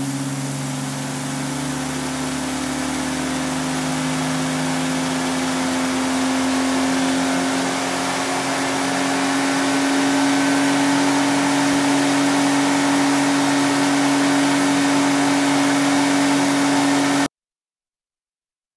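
Nissan GT-R's VR38DETT twin-turbo V6 running hard under load on an engine test bench, its turbocharger glowing red-hot. It makes a steady high drone with hiss that slowly rises in pitch and loudness, then stops abruptly near the end.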